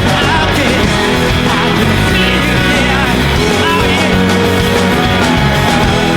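Live concert recording of a rock band playing a heavy rock ballad: a male lead vocal over guitars, bass and drums.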